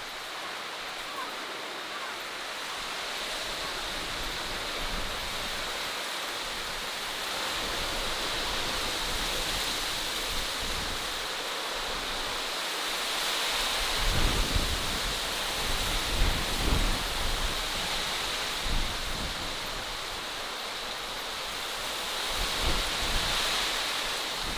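Outdoor nature ambience: a steady rushing hiss. Wind buffets the microphone in low gusts about halfway through and again near the end.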